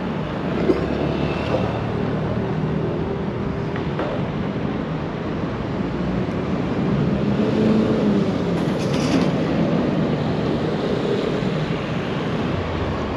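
Busy road traffic at a street junction: engines of cars, a motor scooter and a lorry running and passing. Around the middle, one vehicle's engine note rises and then falls as it goes by.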